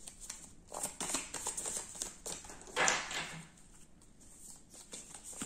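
Oracle cards being handled on a table: light taps and rustles, with a brief swish of cards about three seconds in.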